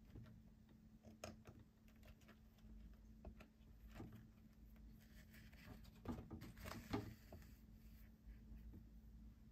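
Faint rustling and light ticks of thread being handled and pulled through a woven fiber sculpture, with a brief scratchy hiss about five to seven seconds in, over a low steady hum.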